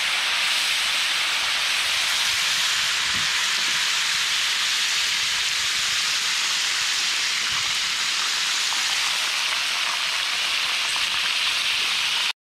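Garlic-morel liquid sizzling in a hot pan of trout pieces over campfire coals: a steady hiss as it boils off in steam.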